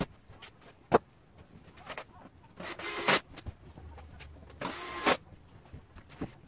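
Two short bursts of a cordless power tool whirring, most likely an impact driver running bolts in while bodywork is refitted, with a sharp knock about a second in.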